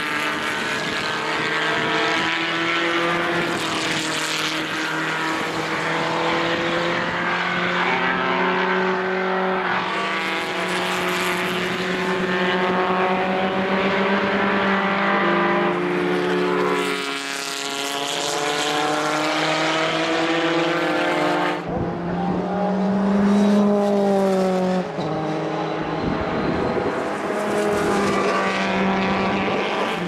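Several historic single-seater racing car engines (Formula 3, Formula Opel and Formula Ford types) running at race speed, the notes overlapping and rising and falling in pitch with gear changes and throttle. Wind buffets the microphone for a few seconds in the second half.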